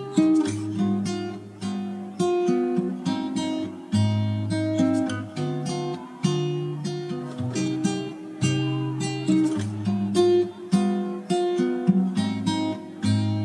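Background music on acoustic guitar: plucked and strummed chords, each note starting sharply and dying away, in a steady rhythm.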